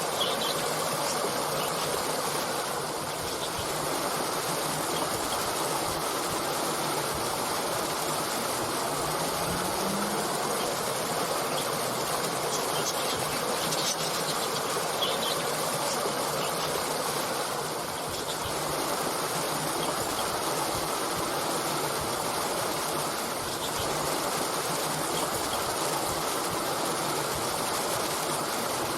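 Steady rushing of a flowing stream, with a few faint high bird chirps coming through, mostly around the middle.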